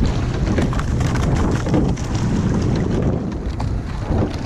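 Wind buffeting the microphone aboard a rowing boat under way: a steady, low rumbling noise with scattered light ticks.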